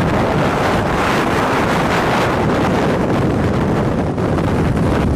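Strong wind from a nearby tornado buffeting the microphone, a loud, steady rush of noise.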